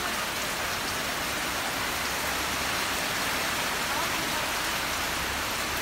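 Heavy typhoon rain pouring down steadily, an even rushing hiss of rain on corrugated metal roofs and wet concrete.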